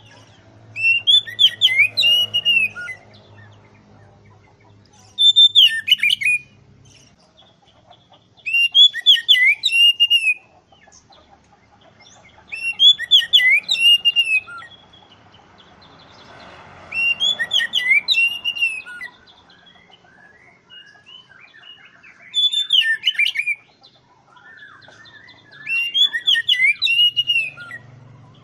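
Oriental magpie-robin (kacer) singing in full song: seven loud phrases of sweeping whistled notes, each one to two seconds long, coming about every four seconds.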